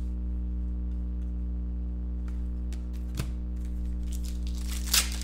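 Trading cards and foil card packs being handled: a few soft clicks of cards, then from about four seconds in the crinkling rustle of packs being picked up off a stack, over a steady low hum.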